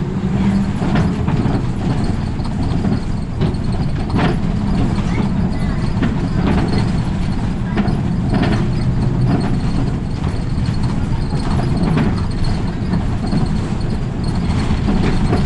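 Route bus engine and road noise heard from inside the cabin at the front as the bus cruises steadily, a constant low rumble with scattered sharp rattles and knocks from the bus interior.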